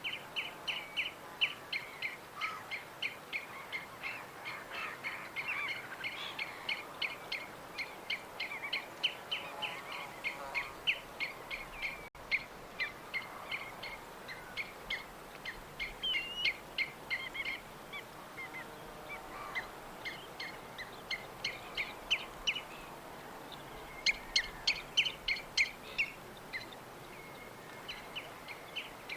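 Several birds chirping at once, a dense stream of short, high, quickly repeated chirps with fainter lower calls now and then. The chirping thins briefly shortly before the end, then comes back as a burst of sharper, higher chirps.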